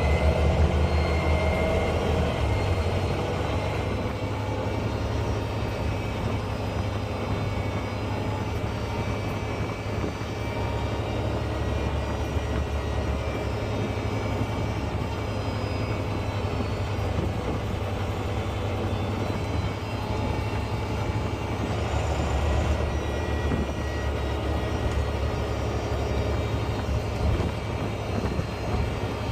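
Volvo B9 bus's diesel engine running steadily under way, with a faint high turbo whistle over the low drone. The engine note shifts about two seconds in.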